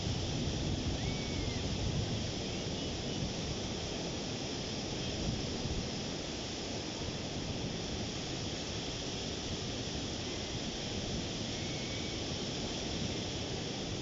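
Ocean surf breaking and washing up over a shallow sandy beach: a steady rushing wash, a little fuller and deeper in the first couple of seconds.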